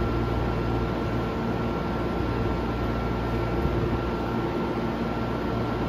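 Steady hum and hiss of an underground subway platform with a Tokyo Metro 10000 series train at it, carrying a faint, steady high-pitched whine throughout.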